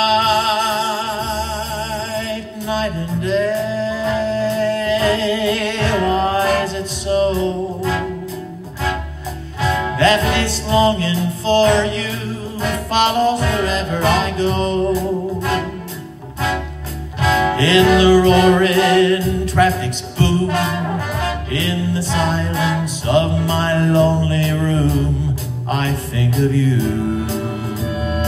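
Music: a held, wavering melody line over a moving bass line.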